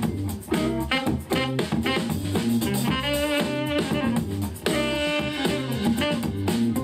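Instrumental music with a steady beat, played through a portable Bluetooth speaker for a sound test.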